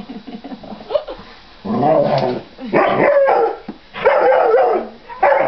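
Large dog giving a string of drawn-out, wavering barks and yowls about a second apart, starting nearly two seconds in: an excited, scolding greeting for its owner home after two weeks away.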